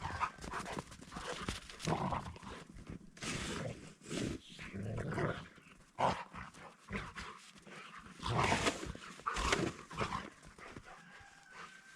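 A dog close by, making a run of irregular short breathy sounds.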